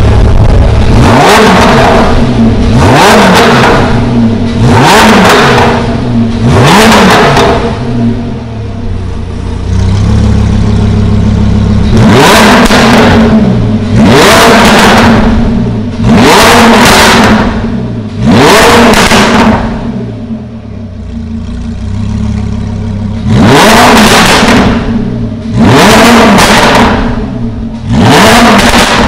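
Lamborghini Huracán LP610-4's 5.2-litre V10 breathing through an Akrapovič titanium exhaust, revved in short blips from idle. Each rev rises and falls quickly. There are four blips in Strada mode, then after a few seconds of idle four in Sport, then after another idle three in Corsa.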